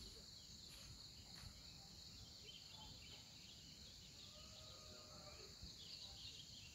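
Faint, steady chorus of insects, with a few soft bird chirps.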